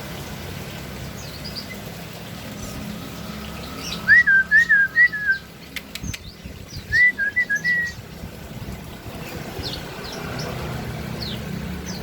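Songbirds in an aviary: a loud whistled phrase of quick, warbling notes about four seconds in, repeated more briefly a few seconds later, over faint high chirps and calls throughout.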